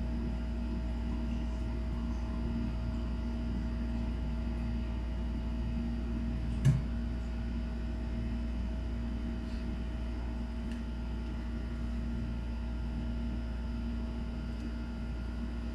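Steady low machine hum with a few constant tones, broken once by a single sharp click about seven seconds in.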